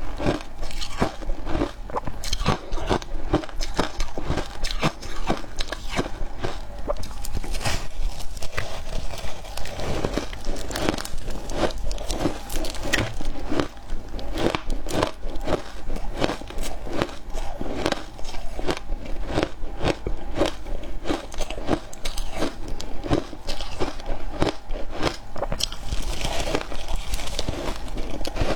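Close-up crunching and chewing of frozen milk-powder shaved ice, a rapid, irregular run of crisp crackling crunches throughout.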